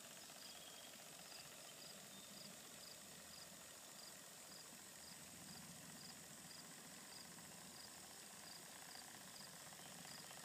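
Near silence: faint high chirps of a cricket, repeating about twice a second over a soft steady hiss.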